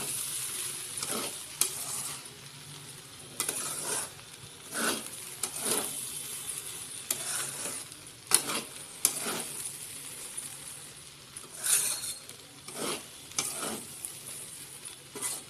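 Metal spatula stirring and scraping rice around a metal kadai, in irregular strokes and clinks about once or twice a second, over a faint steady sizzle from the hot pan.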